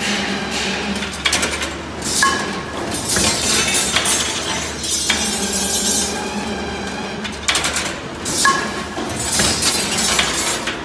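EMPO ring and spiral stirrup rebar machine running: the motor hums steadily while steel wire scrapes through the bending head, with sharp clicks and metallic clinks and ringing as finished rings are cut off and drop onto the pile. The bend-and-cut cycle comes round twice.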